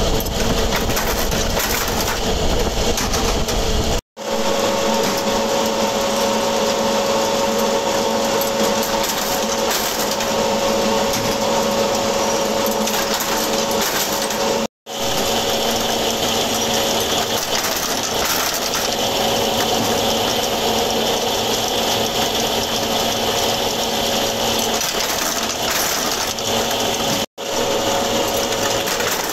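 Flywheel-driven bolt-heading press running continuously while hot-forging red-hot steel rod into bolts, a steady mechanical hum with dense metallic clatter. The sound drops out abruptly three times for a split second.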